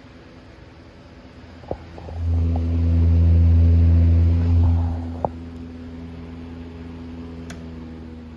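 Antique General Electric 12-inch table fan's motor humming steadily. About two seconds in, a much louder low hum swells for roughly three seconds, set off and ended by sharp clicks, then settles back to the steady hum.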